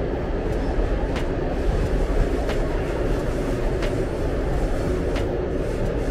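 Steady low rumble of traffic crossing the Sydney Harbour Bridge overhead, with a light tick about every second and a quarter.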